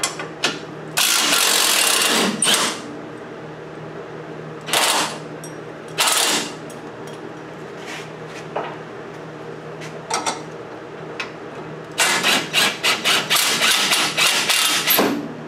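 Impact wrench hammering in bursts on the lower strut bolts of a rear suspension, working them loose: one longer burst about a second in, two short ones midway, then a run of quick stuttering bursts near the end.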